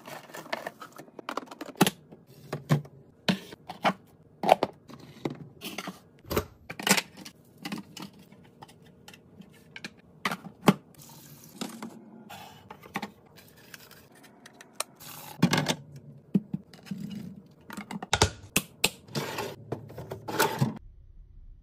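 Clear plastic food-storage containers clicking and knocking as they are handled, opened and set down, with leafy greens and other produce rustling. The taps are sharp and come irregularly.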